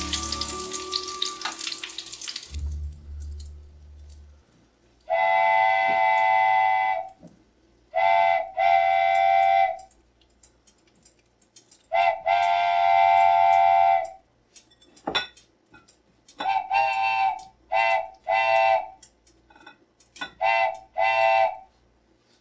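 Background music: a piping, whistle-like melody in short phrases with a low bass beneath, broken by quiet gaps. At the start, hot oil sizzling from the frying chicken fades out.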